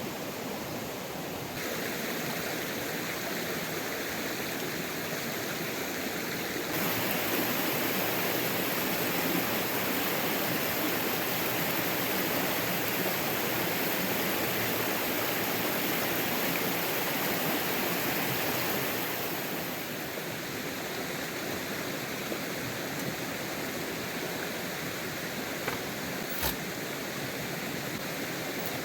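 Steady rushing water, its loudness jumping up a couple of seconds in and again about seven seconds in, then dropping back about two-thirds of the way through. A single sharp click comes near the end.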